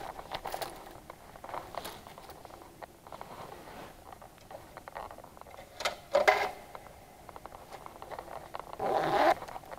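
Quiet indoor room sound with many small scattered clicks, and two short bursts of voices about six and nine seconds in.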